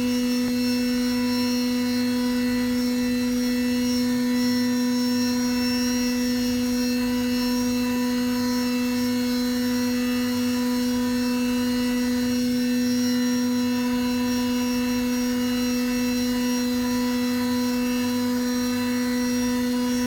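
Homemade hobby CNC machine running: a steady, even whine that holds one pitch throughout.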